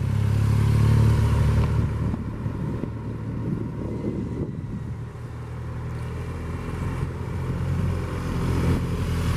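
Large touring motorcycle's engine running at low speed as it rides tight circles, the throttle held on through the bends. It swells about a second in, eases off, and swells again near the end.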